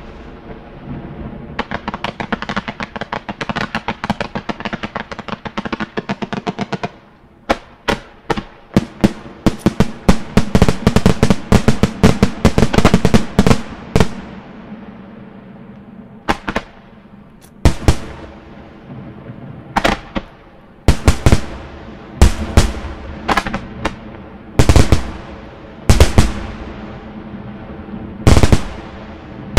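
Aerial firework shells bursting in a display. First comes a long, rapid string of small reports, then a dense barrage of loud bangs, and after that single heavy shell bursts go off one at a time, a second or two apart.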